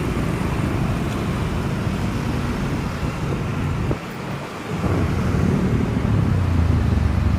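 Low, steady rumble of road traffic, with a brief lull about four seconds in, then growing louder toward the end as a vehicle comes closer.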